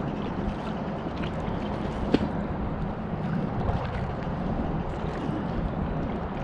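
Kayak paddle strokes: the blades dip and splash in the water, with small drips and ticks, over a steady low rumble. There is one sharp knock about two seconds in.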